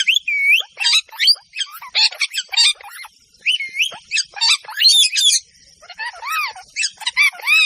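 Parrots calling: a rapid run of squawks, chirps and rising-and-falling whistled notes, with brief pauses about three and six seconds in.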